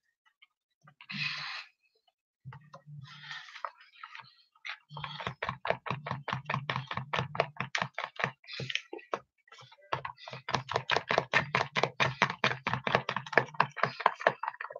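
Batter being beaten by hand with a utensil in a plastic tub: quick, even strokes against the tub starting about five seconds in, a short pause, then a longer run. The batter is being beaten to get the lumps out after more water was added.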